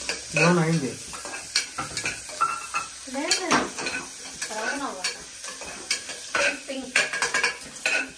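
A metal spoon stirring onions frying in oil in an aluminium pressure cooker: repeated scrapes and clinks of the spoon against the pot over a steady sizzle.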